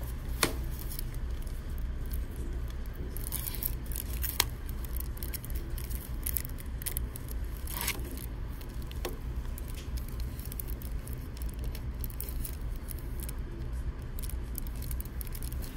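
Cellophane shrink-wrap crinkling as it is picked at and peeled off a slim plastic DVD case, with short rustles and two sharp clicks of the plastic case, over a steady low hum.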